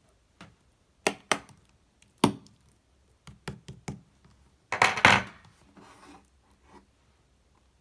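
Hands handling slime and its container: a handful of sharp taps and clicks, then a louder, rougher crackling scrape about five seconds in that trails off.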